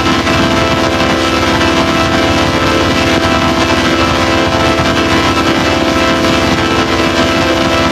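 A loud, steady drone with many pitches held at once, unchanging throughout.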